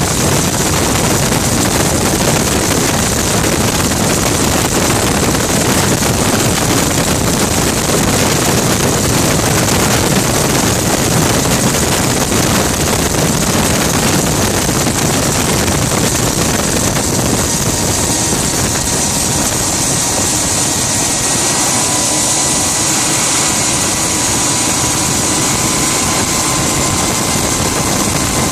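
Gas turbine engine of a Rover Jet 1 recreation running steadily while the car is driven, heard from on board: a loud, even rushing hiss with a strong high whine. A faint thin tone slowly rises in pitch in the last third.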